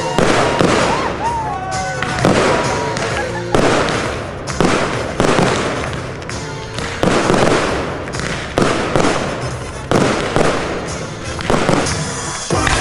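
Fireworks display going off: a string of loud bangs about every second or so, each followed by crackling, with music playing underneath.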